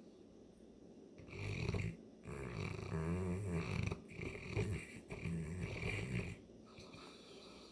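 St. Bernard dog snoring loudly in a run of long snores that starts about a second in and stops about six seconds in. The owner puts the heavy snoring down to allergies.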